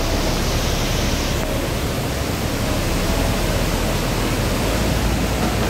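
Muddy floodwater rushing fast in a flooded river, a loud, steady wash of water noise.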